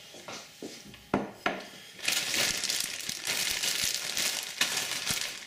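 Thin plastic carrier bag of toasted hazelnuts being handled: a couple of sharp clicks a little after a second in, then steady crinkling of the plastic.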